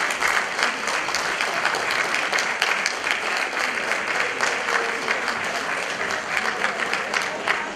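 Audience applauding: many people clapping at once in a dense, even patter.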